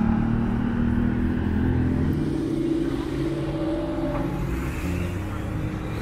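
A road vehicle's engine running and accelerating: a low rumble with a steady hum that eases off a little past the middle.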